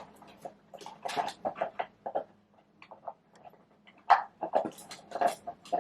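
Straight razor being handled and turned over in the hand: irregular light clicks, taps and scrapes.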